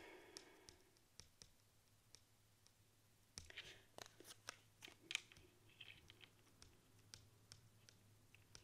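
Faint, scattered clicks and light taps of tarot cards being pulled from a deck and laid down on a tabletop, a few close together about halfway through, over a faint low hum.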